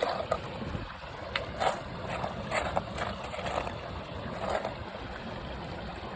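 Creek gravel being washed and shaken in a pan: irregular splashes and rattles, several in the first four seconds, over a steady background rush.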